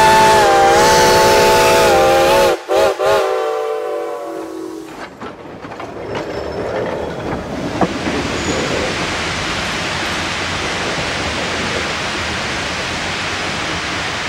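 Shay geared steam locomotive's whistle sounding a long blast that is broken twice briefly and dies away about four to five seconds in. It gives way to the train's steady running rumble and hiss, with one sharp click near eight seconds.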